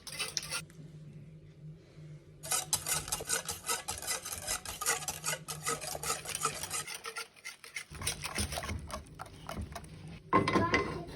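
Metal utensil stirring and clinking rapidly against a bowl, likely whisking pancake batter. The stirring pauses for about two seconds near the start, then resumes, with a louder clatter near the end.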